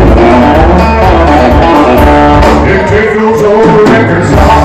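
Live rock and roll band playing loud, with electric guitar, bass guitar and drum kit. The heavy bass and drums drop back for about a second and a half past the middle, then come back in near the end.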